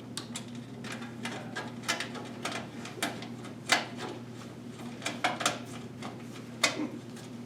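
Phillips screwdriver and small screws clicking, tapping and scraping while motherboard screws are driven into the case standoffs. Irregular sharp clicks run throughout, loudest a little under four seconds in and again near seven, over a steady low hum.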